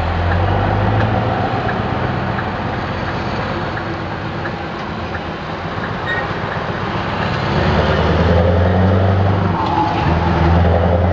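Lorry's diesel engine heard from inside the cab while driving, a low steady hum that grows louder about two-thirds of the way in as it pulls away, with a short drop near the end.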